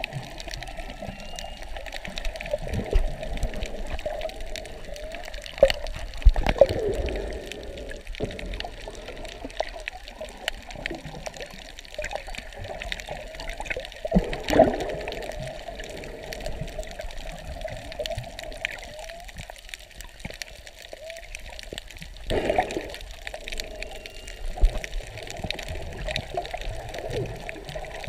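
Underwater ambience on a reef: a dense, constant crackle of snapping shrimp. Under it runs a wavering whale song that swells louder a few times, along with water movement around the camera.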